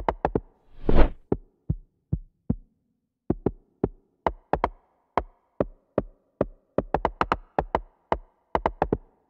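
Programmed amapiano beat playing from FL Studio: sharp electronic drum hits, each with a deep bass thump, over a faint sustained synth layer. A louder, longer hit comes about a second in, there is a brief gap just before three seconds, and then the hits come faster. Playback stops suddenly near the end.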